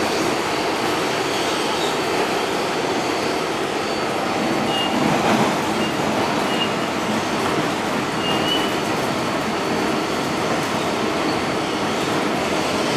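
Inside a New York City Subway R142A car running at speed: steady rumble of wheels on rail, with a few brief high wheel squeals around the middle.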